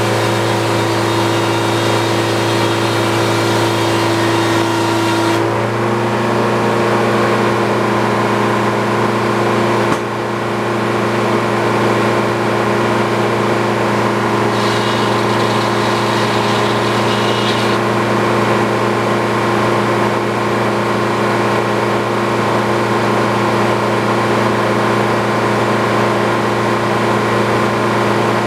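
Sawmill engine running steadily, with a couple of small shifts in its tone.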